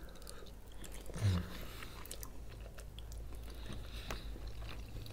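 Two people biting into and chewing boiled khinkali dumplings at close range: soft mouth clicks, with a brief low hum about a second in.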